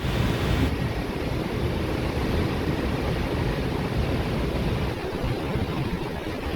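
Sea waves and wind, with the wind buffeting the microphone into a steady, rough, low rumble.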